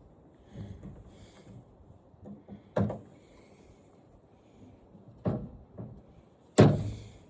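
Several sharp knocks and clatters of parts being handled while a flat-screen TV is taken apart, with softer shuffling in between. Four distinct knocks come about three, five, five and a half and six and a half seconds in, the last the loudest.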